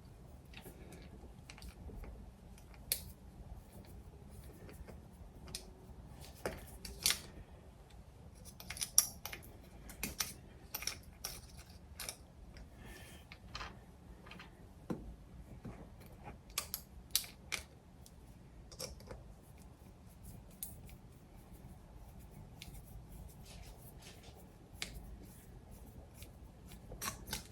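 Scissors snipping through thin aluminum cut from a soda can, a scattering of sharp, irregular snips and clicks.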